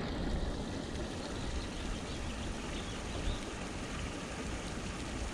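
Wind buffeting the microphone: a steady, unevenly fluttering low rumble with a hiss above it and no distinct event.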